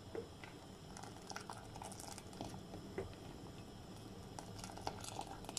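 Sweet tamarind chutney, thickened with cornflour, simmering in a steel saucepan, with faint scattered bubbling pops and a plastic ladle stirring through it.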